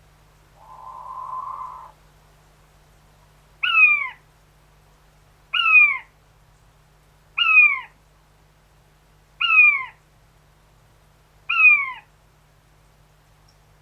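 King quail, taken for a male, first gives a short hoarse growl. It then calls five times at even spacing of about two seconds, each call a single loud whistled note falling in pitch.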